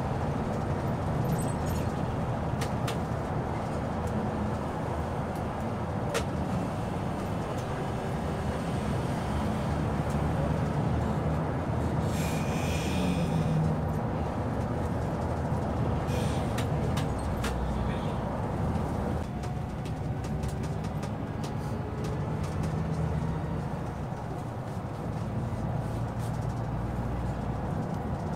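Scania K360IB coach under way, heard from inside the cab: a steady low engine hum and road rumble with light rattles, and a brief hiss about halfway through.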